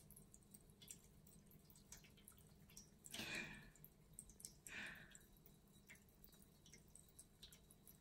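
Stainless-steel pet drinking fountain trickling faintly, its water dripping from the spout into the bowl, with two brief louder sounds about three and five seconds in.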